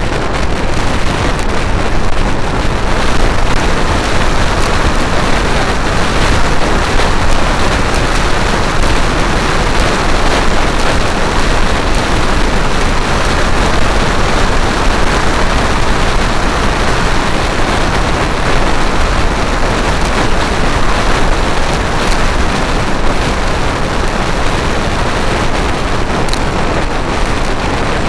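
Steady, loud wind rush on the microphone of a Vespa GTS scooter riding at road speed, with road noise under it.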